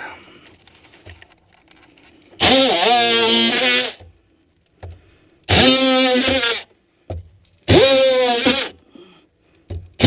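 Cordless power tool cutting into sheetrock, run in three short bursts of about a second each. Each burst is a steady buzzing tone that rises briefly at the start as the motor comes up to speed.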